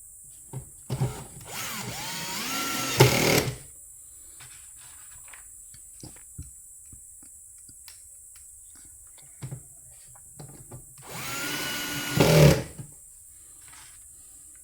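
A cordless drill-driver runs twice, about two seconds each time, driving screws into the espresso machine's casing. Each run rises in pitch as the motor spins up and gets louder near the end as the screw seats. Small clicks of handling come between the runs.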